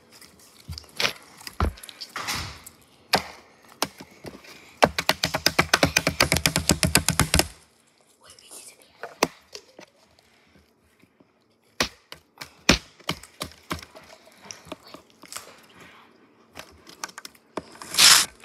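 Hand putty being worked in the hands, giving sharp pops and cracks. Scattered single pops are followed about five seconds in by a fast run of pops, roughly nine a second for nearly three seconds, then more scattered pops.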